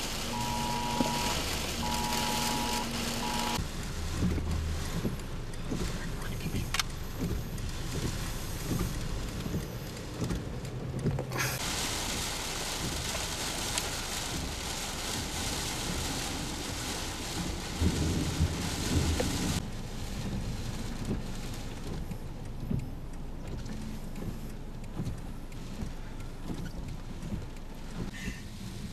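Hail and rain falling on a vehicle, a dense patter of small hits over a running engine, changing abruptly a few times. An electronic beep repeats in the first few seconds.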